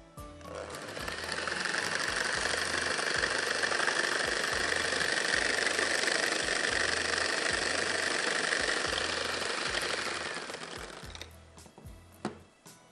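Electric hand mixer running steadily, its beaters whipping a yogurt and egg-white mixture in a glass bowl as dissolved gelatin is poured in. The motor starts about half a second in and winds down near the end.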